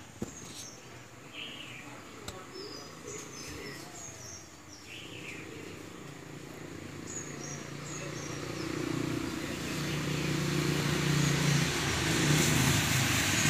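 Small birds chirping in short repeated notes through the first half. From about eight seconds in, the steady hum of a motor vehicle engine grows louder and becomes the loudest sound.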